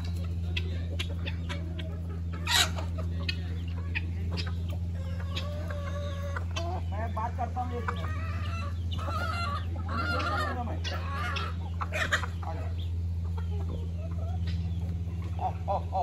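A flock of chickens and roosters clucking and calling, over a steady low hum. A loud, sharp call comes about two and a half seconds in, a run of longer calls comes in the middle, and quick clucks close it out.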